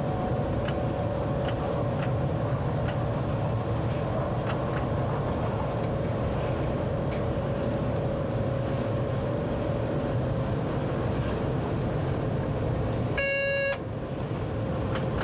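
Train running at speed heard from inside the driver's cab: a steady rumble and hum with faint scattered clicks from the track. About 13 seconds in, a short electronic beep sounds for half a second.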